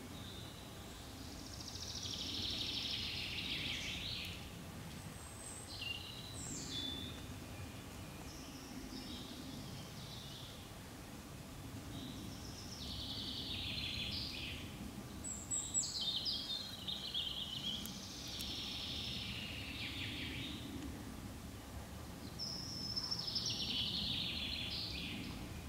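A songbird singing short phrases of about two seconds each, one every few seconds, high and warbling, over a low steady background rumble.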